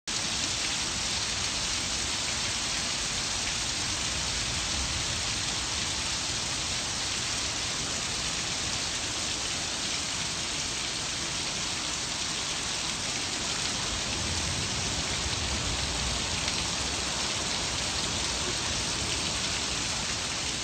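Torrential Hurricane Harvey rain pouring down steadily, with water streaming off the edge of a balcony roof.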